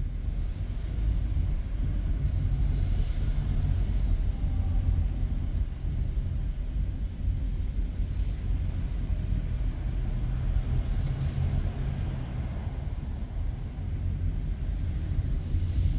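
A car driving, heard from inside the cabin: a low, steady rumble of engine and road noise, with a faint hiss that swells and fades a few times.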